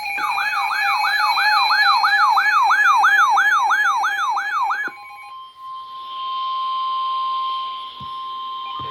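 An electronic yelp siren sweeping up and down about three times a second, stopping after about five seconds. A single steady high tone follows, the 1050 Hz NOAA Weather Radio warning alarm tone that comes before a warning broadcast.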